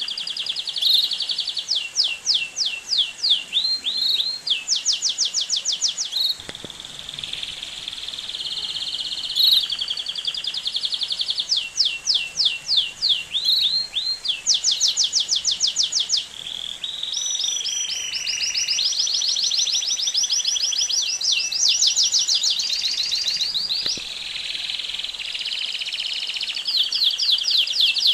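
Domestic canary singing a continuous, high-pitched song of rapid trills, one repeated-note phrase after another, with a few smoother, buzzier rolls near the middle.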